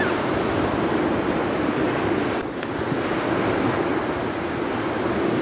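Sea surf washing steadily onto a sandy beach, with wind on the microphone.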